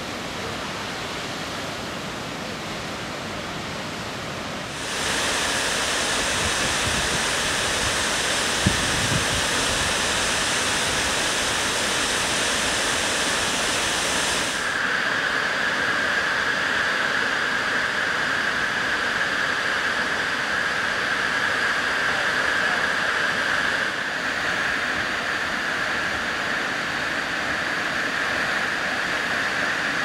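Waterfalls: a steady rush of falling water. It jumps louder and brighter about five seconds in and changes in tone again at about fifteen and twenty-four seconds. A single short knock sounds about nine seconds in.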